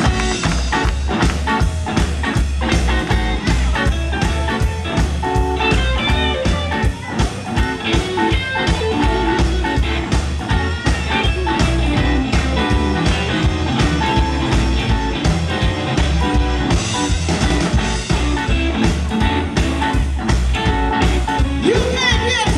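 Live electric blues band playing: electric guitar over electric bass and drums with a steady beat. A woman's singing voice comes in near the end.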